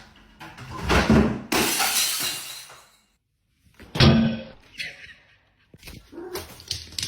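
A crash of something breaking, with a clattering, shattering spread of noise for about two seconds, then a sharp knock about four seconds in and a few scattered knocks near the end.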